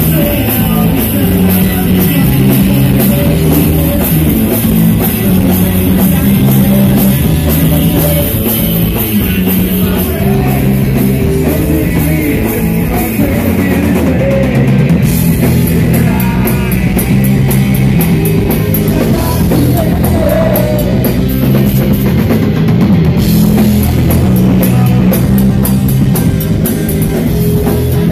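A live heavy rock band playing loud, with electric guitars over a drum kit keeping a steady cymbal beat. The cymbals drop out for about a second halfway through.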